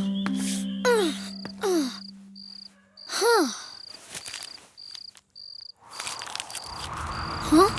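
Cricket chirping in a steady rhythm, about three short high chirps a second, with a few short falling pitched calls in the first half.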